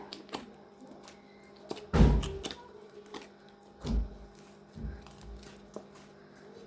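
Bhatura dough being kneaded by hand in a bowl: a few dull thumps as it is pressed and pushed, the loudest about two seconds in and another near four seconds.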